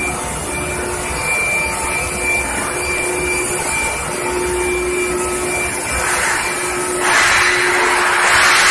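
Induction furnace running: a steady mechanical hum with a high, thin whine and a lower tone that come and go. About seven seconds in, a louder rushing noise sets in.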